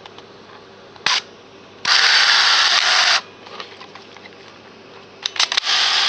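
Canon Sure Shot AF35M II's built-in film-transport motor whirring in two stretches of about a second each, with a brief burst about a second in and a few sharp clicks before the second stretch. The film has just run out at the end of the roll.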